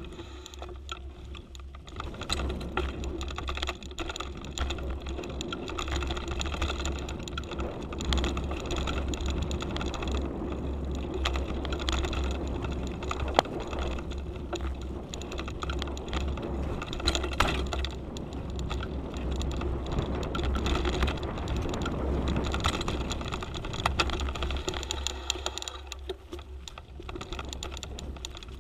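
Mountain bike on a dirt trail, heard through a handlebar-mounted GoPro: a steady clatter of small rattles and ticks from the bike over the bumps and tyres rolling on dirt, over a low wind rumble. It is quieter for the first two seconds.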